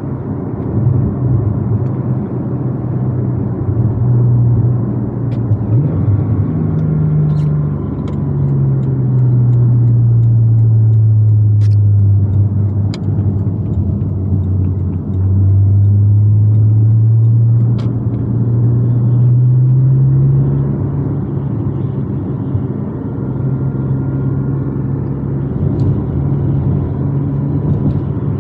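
The 4.0-litre naturally aspirated flat-six of a Porsche 718 Cayman GTS through a SOUL valved exhaust, heard from inside the cabin while driving. The engine note drops in pitch a few seconds in and holds low and louder. Toward the middle it climbs again as the revs rise, then settles into a steady cruise.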